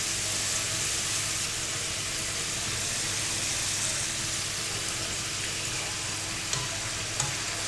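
Semolina dough pieces deep-frying in hot oil in a frying pan, a steady sizzle with a couple of faint ticks near the end.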